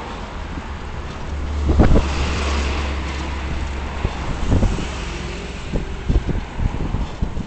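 Road and engine noise from a moving vehicle, with wind buffeting the camera's microphone in uneven low thumps. A low steady hum rises about a second in and fades out a few seconds later.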